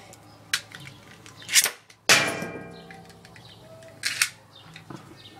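Spinning Beyblade tops with metal fusion wheels knocking against each other and the plastic stadium: scattered sharp clacks, the loudest about two seconds in with a brief ringing after it, then a few lighter clicks around four seconds as the tops clatter out.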